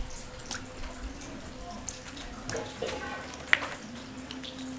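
Wet potato slices dripping as they are dropped by hand onto a tissue-lined metal tray, making soft wet pats and small taps. A sharper tap comes about three and a half seconds in.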